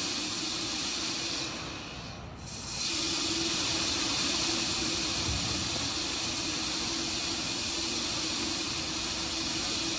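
Steady hissing from the Terran 1 rocket on its launch pad, venting propellant vapour before liftoff. The hiss thins out briefly about two seconds in, then comes back.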